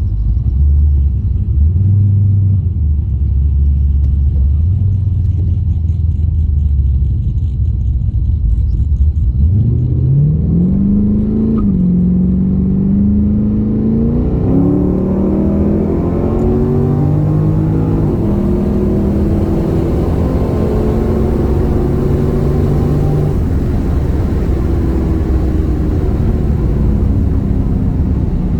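Holden VX Commodore SS's stock 5.7-litre LS1 V8 on a roll-race run. It starts as a low, steady rumble, then about a third of the way in the engine pulls hard, its pitch climbing in steps through the upshifts. It then settles into a steady drone at speed.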